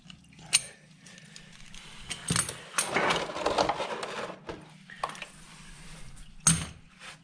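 Metallic clicks and clinks from an oil filter tool and the oil filter as the filter is worked loose from a motorcycle engine: a sharp click about half a second in, a busier stretch of clinking and rubbing in the middle, and another sharp click near the end.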